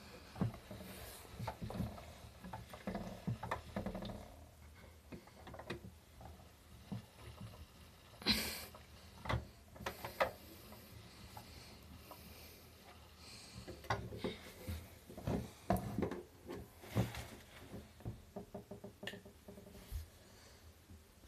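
Toy Miele washing machine running its cleaning cycle: soapy water sloshing and splashing in the turning drum, with scattered light knocks and clicks, a few of them louder.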